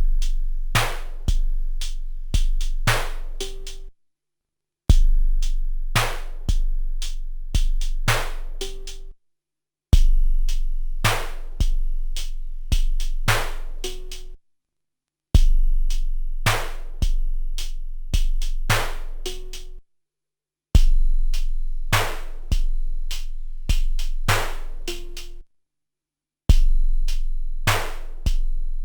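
SP-1200 12-bit drum sampler playing a one-bar beat of long booming kicks, sharp snare hits and hi-hats, with a short pitched tone at the end of the bar. The bar repeats about every five seconds, cut off each time by a brief silence.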